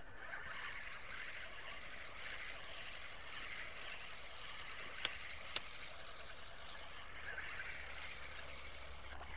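Spinning reel being cranked steadily, its gears whirring as a hooked fish is reeled in, with two sharp clicks about five seconds in.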